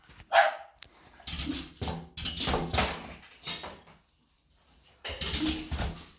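A pet dog making noise: one short, sharp yelp or bark about half a second in, then two longer, rough, noisy stretches.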